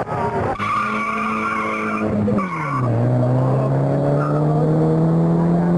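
Drag-racing cars launching off the line: an engine held at high revs with tyres squealing in wheelspin for about two seconds, then the revs drop sharply on an upshift and climb steadily as the car accelerates away.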